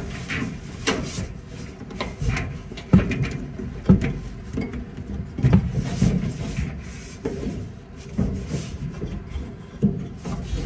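Hands working a Samsung dryer's spring-loaded idler pulley arm by the drive motor: irregular clicks, knocks and rubbing of metal and plastic parts, with several sharper knocks.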